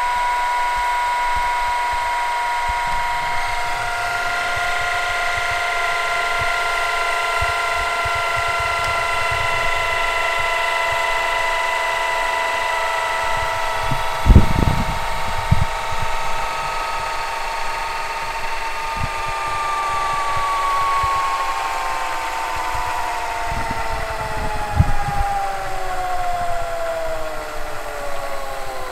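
Panasonic NV-HD635 VHS video recorder rewinding a tape: a steady tape-transport whine with several overtones, which falls in pitch over the last few seconds as the rewind slows. A sharp knock about halfway through and a few lighter knocks later on.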